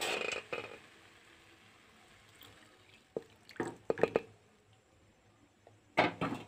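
Milk poured into a pan of roasted makhana, splashing in the first moment. Then a spoon stirs it, with a few short scrapes and clinks against the pan about three to four seconds in and again near the end.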